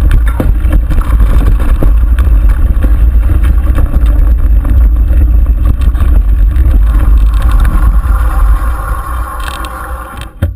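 Mountain bike rolling fast down a dirt singletrack: a heavy wind rumble on the handlebar camera's microphone over the tyres on dirt and leaf litter, with frequent knocks and rattles from the bike over bumps. It eases off near the end as the bike slows.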